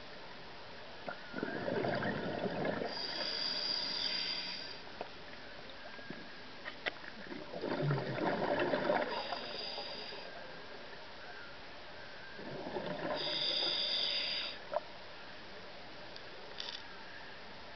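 Scuba diver breathing underwater through a regulator: three breaths about five seconds apart, each a rush of bubbling and a high regulator hiss.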